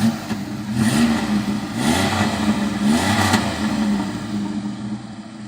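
2001 Pontiac Bonneville's 3800 non-supercharged V6 revved in about four quick blips, then settling back toward idle near the end. It is running smoothly on a fresh tune-up.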